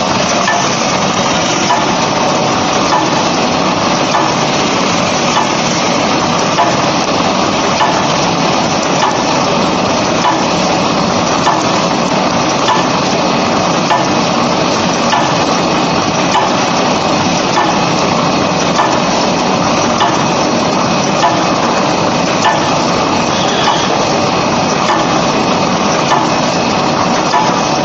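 Tulip muffin cup making machine running steadily: a dense, continuous mechanical clatter from its rotary turret and forming station, with frequent light knocks as the paper cups are pressed.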